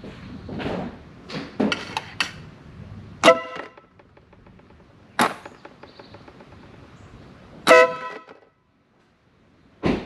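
Wolo Bad Boy electric air horn sounding two short blasts about four seconds apart, a test showing that the spliced horn leads carry power. A few sharp clicks and handling knocks come between and before the blasts.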